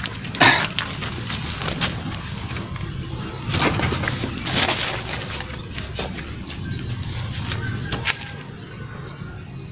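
Close handling noise: rustling with a scatter of sharp clicks and knocks as an angler handles a freshly landed tilapia and his tackle near the microphone. Under it runs a steady high insect drone.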